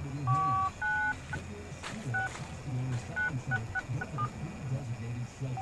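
Touch-tone keypad beeps from a phone being dialed: about nine short two-tone key presses, irregularly spaced, with the first few held a little longer.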